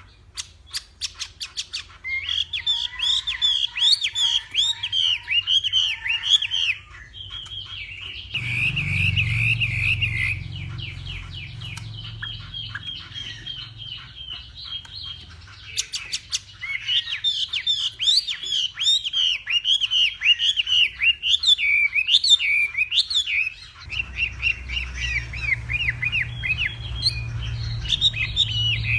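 Chinese hwamei singing: long bursts of loud, varied whistled phrases and rapid trills, broken by short pauses. It opens with a quick run of sharp clicking notes.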